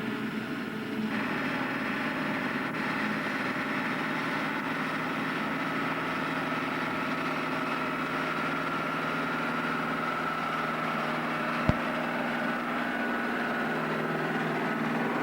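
John Deere self-propelled forage harvester running steadily while cutting maize, a constant machine drone with a high whine over it that gets fuller about a second in. A single sharp click sounds near the end.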